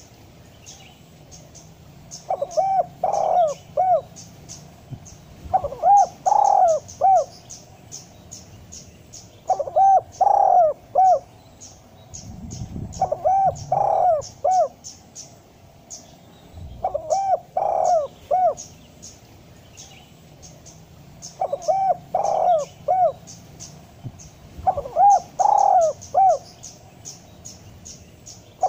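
Spotted dove calling its cooing phrase of several notes, repeated every three to four seconds. Fast runs of high-pitched chirps from small birds sound behind it.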